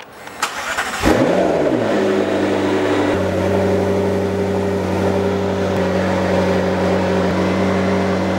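A McLaren's twin-turbo V8 starts about a second in, flares briefly in pitch, then settles into a steady idle.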